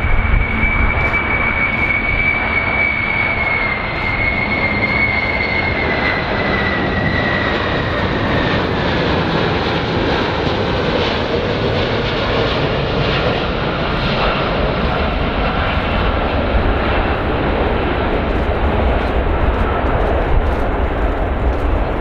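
Boeing 747 VC-25A on final approach with its four GE CF6 turbofans running: a steady jet rumble with a high whine that slowly falls in pitch as the aircraft draws nearer.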